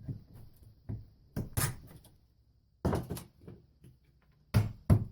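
A series of irregular knocks and thumps of wood being struck or handled, the loudest two coming in quick succession near the end.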